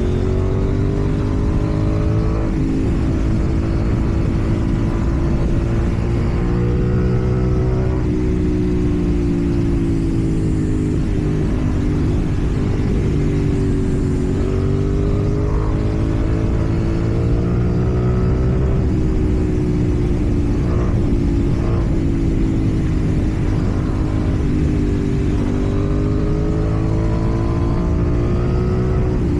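KTM Duke 790's parallel-twin engine running through a slip-on exhaust while riding, its pitch rising and falling gently as the throttle is opened and eased off.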